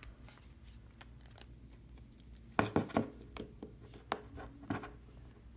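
A few sharp clicks and taps of small hard objects being handled during a phone repair, with a quick cluster of louder taps about two and a half seconds in and single ones after.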